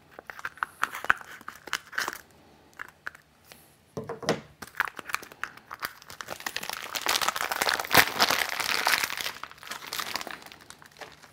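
Clear plastic wrapping crinkling and tearing as a spool of 3D-printer filament is unwrapped by hand. It starts as scattered crackles, then about halfway through becomes denser, louder crinkling.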